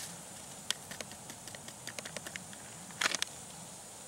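Foil soup envelope crinkling, with scattered small clicks as it is shaken out and handled and a louder crinkle about three seconds in.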